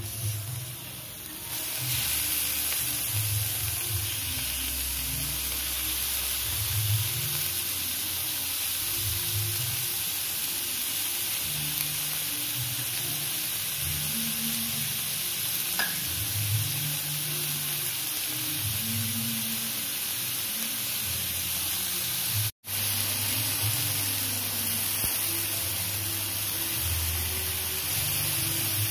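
Chicken satay skewers sizzling on a hot ridged nonstick grill pan: a steady hiss that comes up about two seconds in. It drops out for an instant in the second half.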